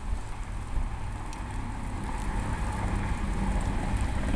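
Wind buffeting the microphone as a steady low rumble, with the faint hiss of light rain beginning to fall.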